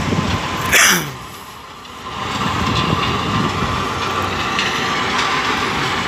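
Diesel engine of a truck-mounted hydraulic crane running steadily while the crane holds a heavy steel bin on its hook. A short, loud burst of noise comes about a second in. The engine sound then drops for about a second before picking up again.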